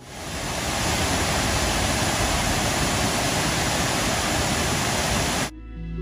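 Steady rushing of a small waterfall pouring over a stone wall into a pool. It swells up over the first second and cuts off suddenly about five and a half seconds in.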